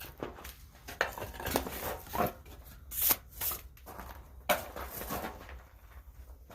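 Irregular sharp knocks and clatter of tools and metal being handled, about eight separate hits at uneven intervals, with no steady hammering rhythm.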